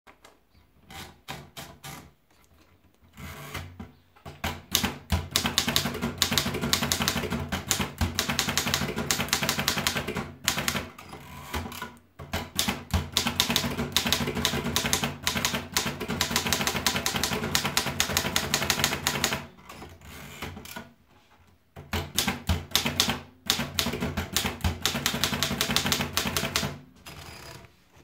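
Erika Model 11 portable manual typewriter: a few scattered clicks as the paper is wound in, then three runs of rapid key strikes, one for each typed line, with carriage returns in the short pauses between them.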